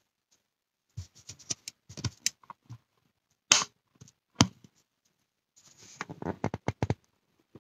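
Handling noise from the filming phone being moved and adjusted on its mount close to its microphone: scattered clicks and taps, two sharper knocks about halfway through, then a rustling scrape near the end.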